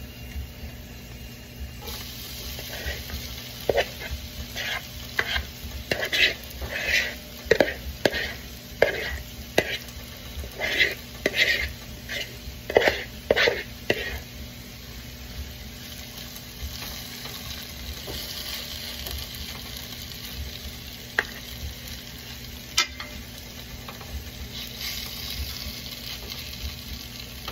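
A utensil scraping a mixing bowl in quick repeated strokes as a bacon, onion and garlic mixture is scraped out into a cast-iron skillet. It then settles to a steady sizzling hiss, with a few single clicks of the utensil.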